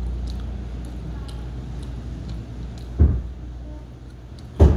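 A person eating pizza with small mouth and chewing ticks over a steady low hum. A dull thump comes about three seconds in and another near the end.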